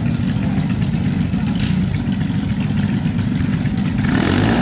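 A drag-racing engine idling loudly with a rough, rapid chop. Near the end it starts to rev, its pitch beginning to climb.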